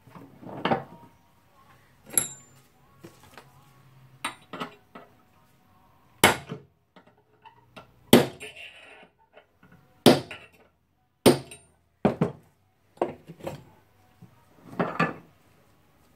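Metal tools and parts of a rotary hammer's hammer mechanism knocking and clinking on a workbench, about a dozen separate sharp knocks spaced a second or two apart, as a stuck retaining ring is worked loose.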